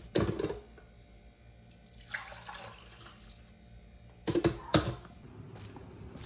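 A glass coffee carafe clanks as it is pulled from a drip coffee maker. About two seconds in, coffee pours into a ceramic mug for about a second, then the carafe clinks a few times as it is set back down.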